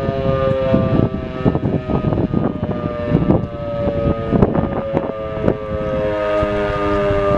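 Volunteer fire station's roof-mounted rotary siren sounding a long, steady tone, a commemorative alarm for the Warsaw Uprising anniversary. Its pitch sags slightly and then rises a little near the end.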